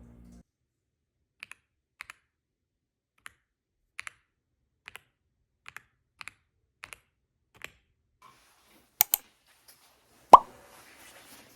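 Keys on a mechanical-feel computer keyboard pressed one at a time, slowly, each stroke a quick double click of press and release, to show off its typing feel. Near the end come a louder double knock and then one sharp, loudest knock with a brief ring.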